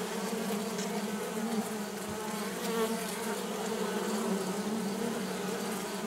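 Honeybee colony buzzing inside a wooden top-bar hive: a close, continuous hum with a steady low pitch.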